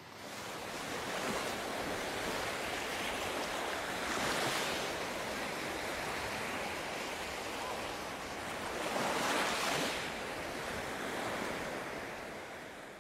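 Sea waves washing onto a sandy beach, a steady rush with two bigger surges about four and nine seconds in, fading out near the end.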